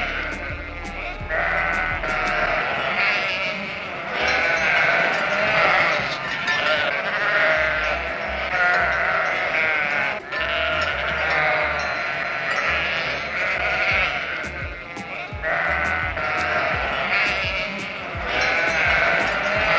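A flock of sheep bleating, many calls overlapping almost without a break.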